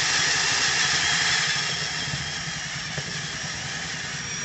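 Electric drill running under load, boring a hole through a metal plate; its level eases slightly about a second and a half in as it is worked gently.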